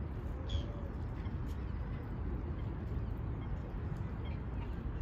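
Outdoor park ambience: a steady low rumble of background noise with a short bird call about half a second in and a few faint chirps later.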